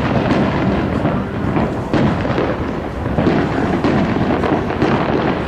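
Aerial fireworks bursting in a dense barrage, many booms following one another so closely that they merge into a continuous rumble.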